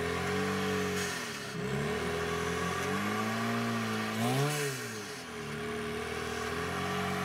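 Rock crawler buggy engine revving up and falling back again and again as the buggy works up a steep rock ledge, with a sharp blip of revs about four and a half seconds in.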